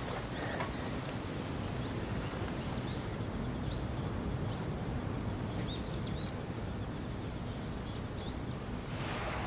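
Outdoor park ambience: a steady low rumble with scattered short bird chirps, and a brief rush of noise near the end.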